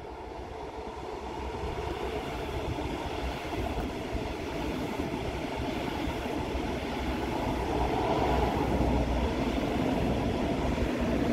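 Double-deck regional express train passing on the line below, its wheels and coaches rumbling along the rails and growing steadily louder as it comes closer, loudest near the end.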